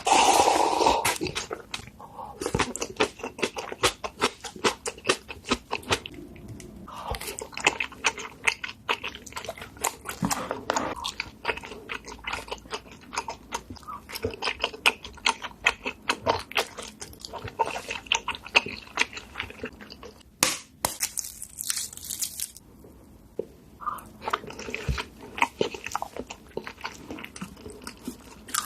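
Close-miked eating: crunching bites and chewing, a dense run of crisp clicks and crackles. A brief high-pitched hiss comes about three quarters of the way through.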